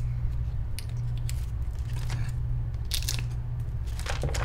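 Plastic parts bags crinkling and rustling as they are handled, in several short spells, over a steady low hum.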